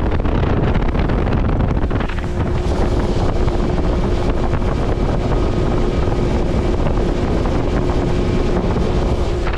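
Small aluminum fishing boat under way on choppy water: heavy wind buffets the microphone over the steady drone of the boat's motor. The motor's hum holds one steady pitch from about two seconds in.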